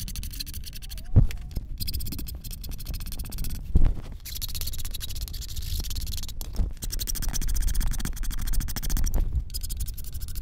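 Flat hand file rasping back and forth over the wooden tenon ends of chair spindles, in runs of strokes with short pauses. It is taking the old finish off down to bare wood so that glue will hold. Two sharp knocks, about a second in and again near four seconds.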